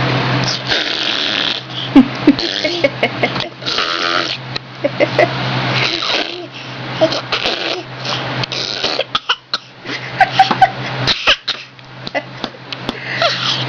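A baby about ten months old blowing raspberries, making fart noises with her lips over and over in short buzzing bursts with brief pauses between them.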